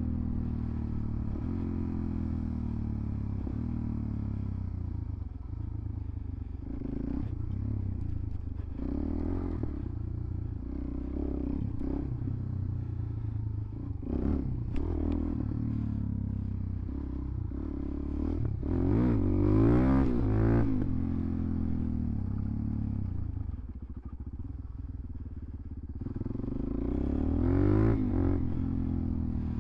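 Suzuki DR-Z400SM's single-cylinder four-stroke engine being ridden hard, revving up and down with the throttle, its pitch rising and falling. It is loudest in two strong accelerations, about two-thirds of the way in and near the end.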